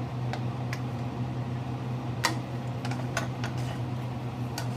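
Shrimp cooking further in a pan: scattered sharp pops and clicks over a steady low hum.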